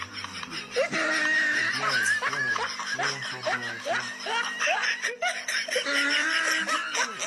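A man laughing in a rapid run of snickers and chuckles over background music.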